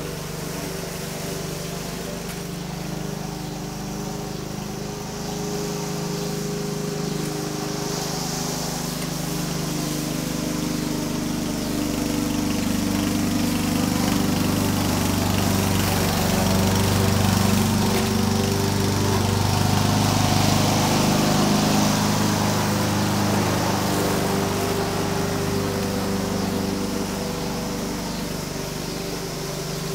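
Walk-behind gasoline rotary lawn mower running steadily while cutting grass, growing louder as it passes close by around the middle and fading as it moves off again.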